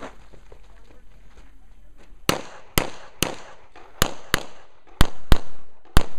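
Handgun shots fired rapidly, eight of them, starting about two seconds in, mostly in quick pairs; each is a sharp crack with a short echo.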